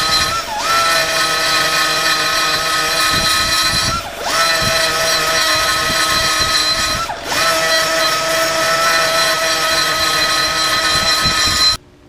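Electric power tool running at a steady high whine, its pitch dipping and recovering three times as it briefly bogs under load. The sound stops abruptly near the end.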